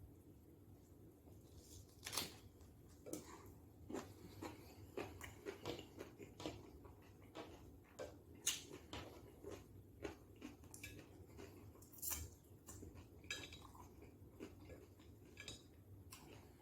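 Close-up mouth sounds of chewing and crunching a raw cucumber boat stuffed with taco meat and toppings: irregular wet crunches and clicks.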